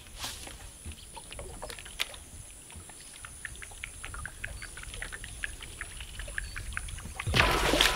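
Faint water sounds around a small wooden boat with a run of light ticks and clicks. Music comes in loudly near the end.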